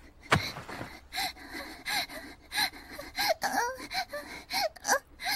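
A young woman's voice moaning and gasping: a sharp breathy gasp at the start, then a run of short moans that come faster toward the end.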